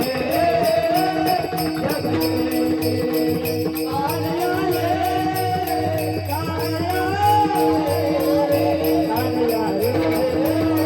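Gavlan, a Marathi devotional song: a solo voice singing a melismatic line over steady sustained drone notes, with metallic hand cymbals keeping an even beat of about four strokes a second.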